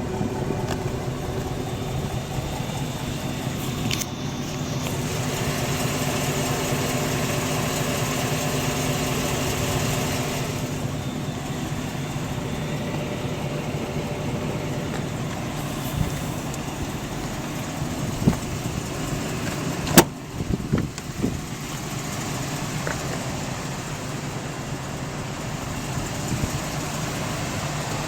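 A small school bus's engine running steadily with an even hum. A hiss rises about four seconds in and fades out around ten seconds. A sharp click comes about twenty seconds in, followed by a few light knocks.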